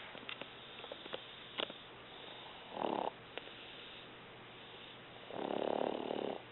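A woman snoring in her sleep: a short snore about three seconds in and a longer one near the end, with a few faint clicks in between.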